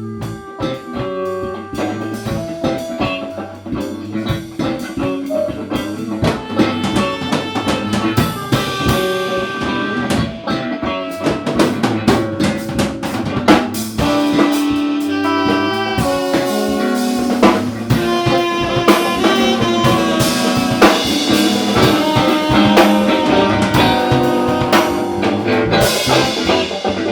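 Live band jam: a drum kit keeping a beat with snare and bass drum under several pitched instruments playing notes and chords.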